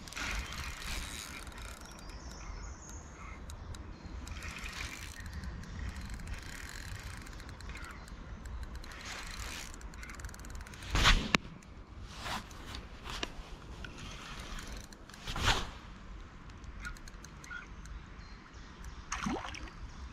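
Spinning reel being cranked as a hooked fish is reeled in, its gears and bail giving a light mechanical clicking and whirring, with two loud sudden sounds about eleven and fifteen seconds in. Near the end the fish splashes in the shallows.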